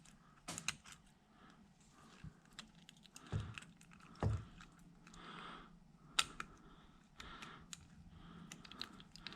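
Scattered small metal clicks and taps, with two duller knocks a few seconds in, from hands working the inner retaining ring of a CV joint back into place.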